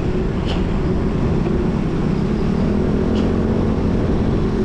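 Steady low rumble of outdoor road noise, with two faint clicks about half a second and about three seconds in.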